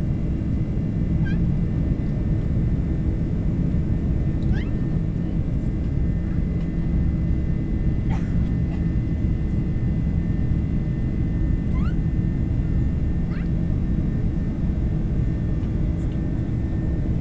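Airliner cabin noise: the steady rumble of jet engines and airflow, with a faint steady whine above it. Several short, high, rising squeaks break through it a few seconds apart.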